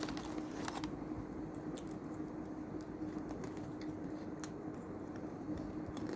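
Close-up chewing of crunchy Mr Twist snacks, with a cluster of crisp crunching clicks in the first second and a few single crunches later, over a steady low hum.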